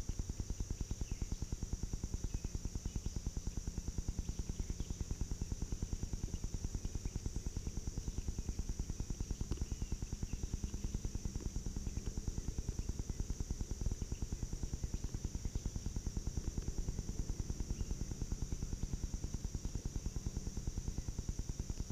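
Steady high-pitched insect chorus over a fast, even low pulsing.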